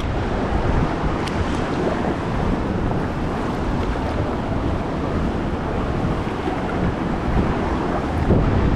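Steady wash of ocean surf mixed with wind buffeting the microphone, heaviest in the low rumble.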